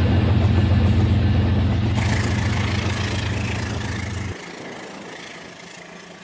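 Rail King remote-control toy train running, its small electric motor giving a low hum with a fine rattle. The hum fades, then stops abruptly about four seconds in, leaving only a faint hiss.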